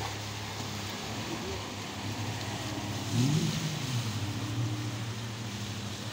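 Outboard motor of an inflatable rescue boat running steadily at speed. Its pitch rises and then falls a little past the middle as the boat turns.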